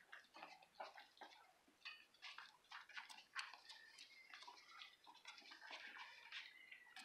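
Faint scuffling and light ticking of five-week-old Cairn terrier puppies squirming and being petted by hand, with a thin, high puppy whine near the end.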